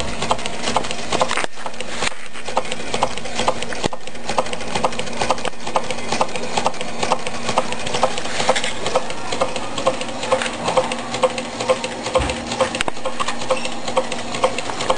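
Meccano Stirling engine running, its geared crank and flywheel mechanism clicking in an even rhythm of a few clicks a second over a faint steady hum.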